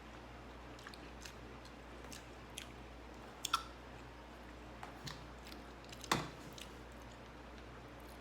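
A person chewing and biting food, mouth sounds with scattered short crisp clicks; two louder sharp snaps come about three and a half seconds in and about six seconds in.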